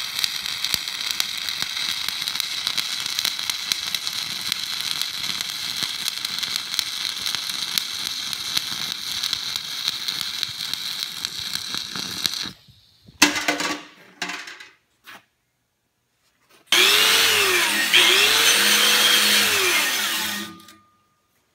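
Stick (SMAW) welding arc crackling and spitting steadily for about twelve seconds as a stringer bead is run on a flat test plate. A few clicks and knocks follow. Near the end a DeWalt angle grinder starts up and runs for about four seconds to clean the weld, its pitch dipping and rising as it bites, then is switched off.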